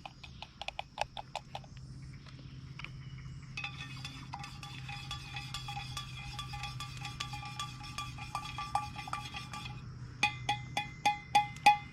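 A metal camp mug ringing as coffee is stirred in it. There are a few light clinks at first, then a long run of rapid stirring clinks, and near the end about seven louder taps against the mug.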